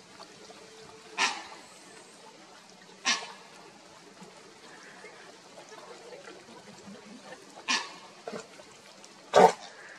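Dogs lapping rainwater from a shallow puddle, with four sharp wet slurps a few seconds apart; the last one, near the end, is the loudest.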